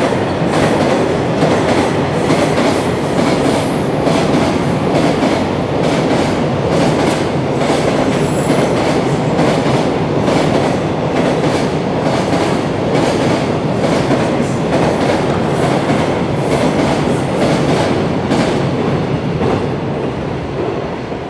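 Long freight train passing at speed: a steady rumble of wheels with rapid clickety-clack over rail joints as the wagons go by. The sound falls away near the end as the last wagon passes.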